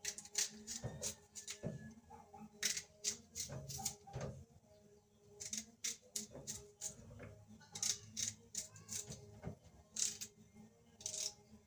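Small kitchen knife peeling and cutting a garlic clove, making an irregular string of short, crisp scraping clicks.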